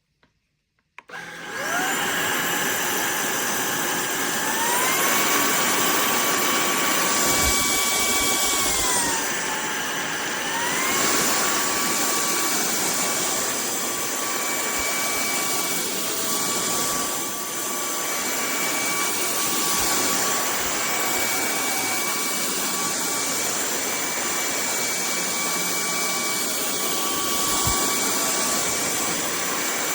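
Stanew 4-in-1 cordless stick vacuum cleaner switched on about a second in and running with a steady motor whine. The whine steps up in pitch around four seconds in, drops back near nine seconds, then steps up again around eleven seconds, as the vacuum is switched between its speed settings.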